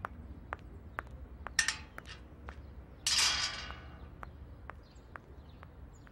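Footsteps clicking on a paved path as someone walks away, with a short shrill burst about one and a half seconds in and a louder harsh noise about three seconds in that fades over most of a second.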